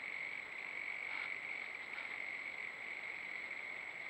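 Steady, unbroken high-pitched chorus of small calling animals, frogs or insects of the bush, with faint rustles about one and two seconds in as the buck's antlers work a sapling.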